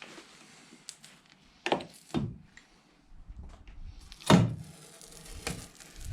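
Knocks and clicks of trim strips being pulled off the body of a 1965 Chevy Bel Air, a few separate thunks with the loudest about four seconds in.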